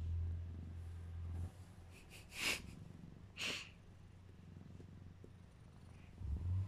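Domestic cat purring with a steady low rumble while being stroked; the purr stops about one and a half seconds in. Two short hissing sounds follow about a second apart, the loudest things here, and the purr starts again near the end.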